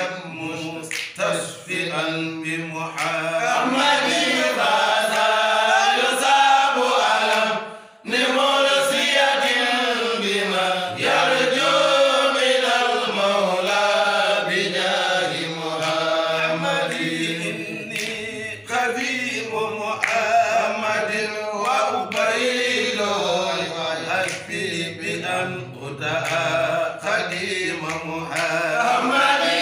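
A group of men chanting a religious poem together without instruments, with long melodic phrases that rise and fall. There is a short break about eight seconds in.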